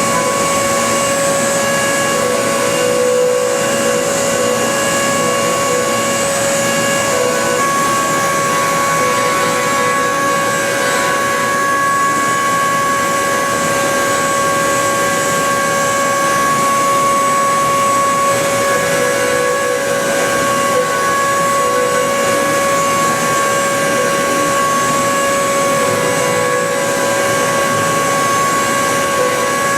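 Milltronics CNC mill cutting metal in high-efficiency milling: a steady, loud whine made of several stacked pitches over a rough cutting hiss, shifting a little in strength as the cut goes on.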